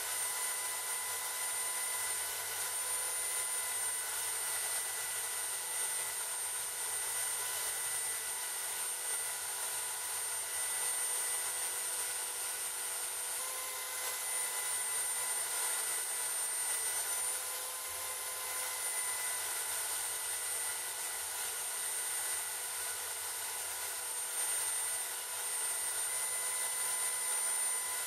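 Electric motor spinning a small abrasive wheel held against a rust-pitted steel mortar part: a steady whine with the hiss of the wheel grinding the metal.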